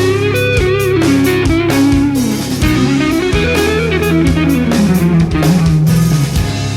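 Background music: an electric guitar playing bending lead lines over bass and drums.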